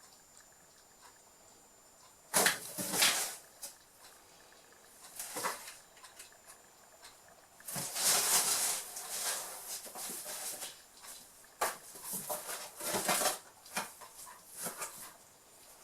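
Kittens scrabbling and jumping about a cardboard box: irregular bursts of scraping and rustling, the longest lasting a couple of seconds about eight seconds in.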